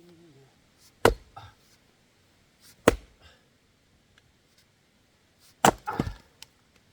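Axe strikes splitting firewood logs. There are four sharp chops: one about a second in, one near three seconds, and two in quick succession near the end.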